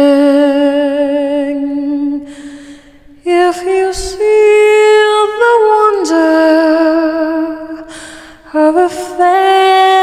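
Background music: a woman's voice singing slow, long held notes, with two brief lulls, about three and about eight seconds in.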